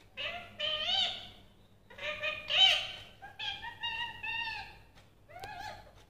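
Indian ringneck parakeet talking: several short, high-pitched phrases of mimicked human speech, with gaps between them.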